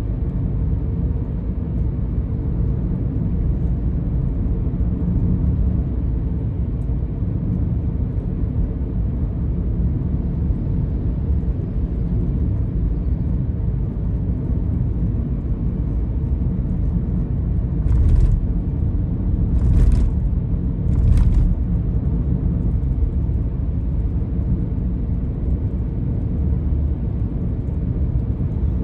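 Steady low rumble of a car driving, as heard from inside the cabin: engine and tyre noise. About two-thirds of the way through come three short thumps close together.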